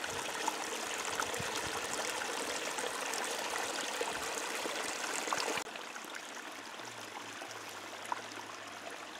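Stream running: a steady rush of water with no pitch to it. About five and a half seconds in it steps down to a somewhat quieter rush.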